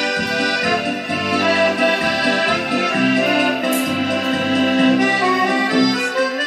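Piano accordion playing a tune, a melody of held reedy notes over a steady bass beat of about two notes a second.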